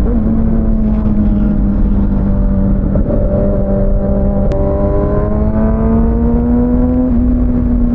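Kawasaki ZX-6R inline-four sport-bike engine under way at a steady cruise, its pitch holding level and then slowly climbing over the second half as the bike gently accelerates, over a low rush of wind.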